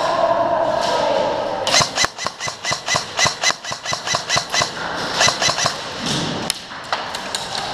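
M4-style airsoft rifle firing a rapid string of single shots, about four a second, starting about two seconds in and thinning out near the end. Before the shots a steady high whine is heard.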